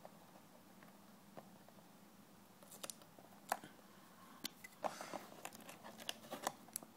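Faint, scattered small clicks and light rustling of fingers handling a plastic SIM card against a paper template, busier about two-thirds of the way through.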